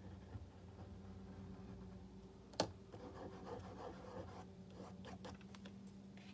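Oil pastel scratching and rubbing on watercolour paper, faint, with one sharp click about two and a half seconds in, over a steady low hum.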